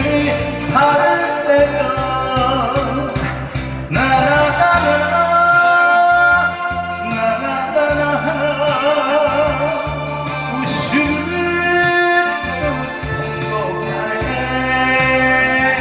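A man singing a Korean song into a handheld microphone, amplified, with wavering vibrato on held notes, over a musical accompaniment with a steady repeating bass line.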